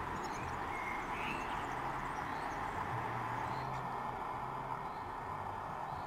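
Steady outdoor background noise, a hiss with a low hum under it, with faint bird chirps about once a second.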